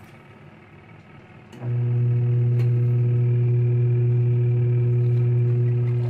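Twin-tub portable washer's wash motor paused, then starting again about a second and a half in with a steady low hum as the pulsator churns a sleeping bag in the water. It is the stop-start of the wash cycle.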